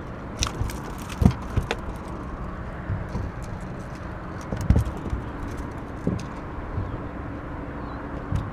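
Scattered knocks and clatter as a landed wiper (hybrid striped bass) is handled with a fish grip over the boat's deck, loudest about a second in and again near the middle, over a steady low hum.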